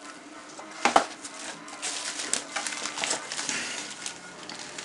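Cardboard box and bubble-wrap packaging being handled: a knock about a second in, then a run of crackling and rustling as a laptop keyboard is pulled out of its wrapping.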